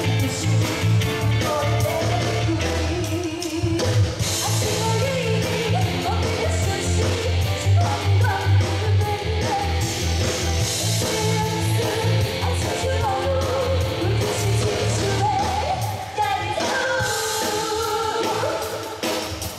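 Live band playing an upbeat pop song with a woman singing into a microphone, amplified through the stage speakers over a steady bass and drum beat.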